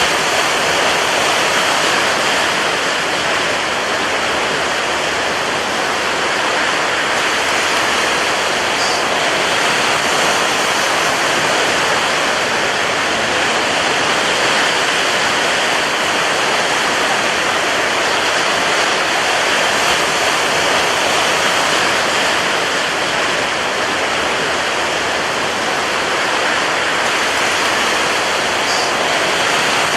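Rough sea surf and strong wind: a steady, dense roar of noise with no separate wave breaks standing out.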